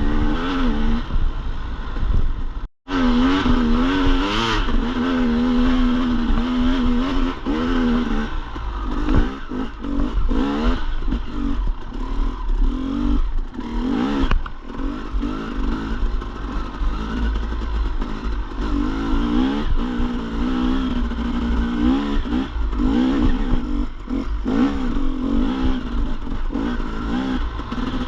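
Dirt bike engine revving up and down as it is ridden over rough trail, with clattering knocks mixed in. The sound drops out abruptly for a moment about three seconds in.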